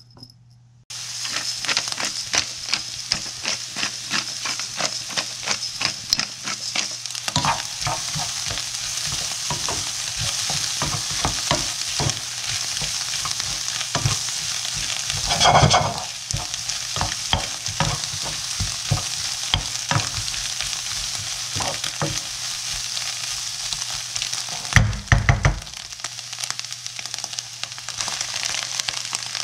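Shrimp fried rice being stir-fried in a wok, starting suddenly about a second in: steady sizzling with a constant scrape and clack of a spatula against the wok. It swells into a louder burst of sizzling about halfway through and gives a few heavy knocks near the end.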